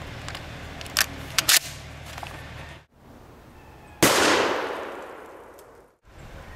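Shotshells being pushed into the loading port of a Remington 870 Express Super Magnum 12-gauge pump shotgun, with three sharp metallic clicks about a second in. About four seconds in comes a single shotgun blast, picked up by a remote camera near the target, with an echoing tail that dies away over about two seconds.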